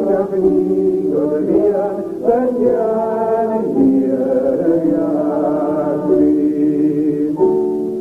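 Singing of a Gaelic song, the melody moving through short phrases and ending on a long held note near the end.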